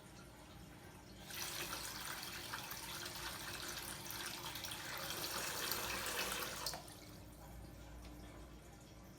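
Water tap fitted with a silent ceramic cartridge, opened about a second in: a plain rush of running water with none of the resonant humming that water hammering inside the old cartridge caused. It gets a little louder, then shuts off abruptly a few seconds before the end.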